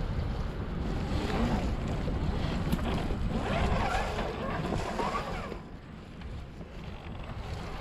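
Onboard-camera sound of an Axial SCX10 II RC crawler driving over rocks and dry leaves: a steady rumble with wind on the microphone and a wavering buzz near the middle, getting quieter about two-thirds of the way through.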